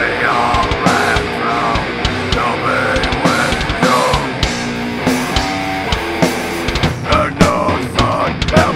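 Heavy rock band playing live, with a drum kit keeping a steady beat under guitar.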